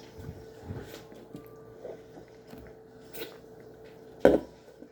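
Faint sips, swallows and small handling sounds of someone drinking soda from a can, over a faint steady hum, with one short, much louder sound just past four seconds in.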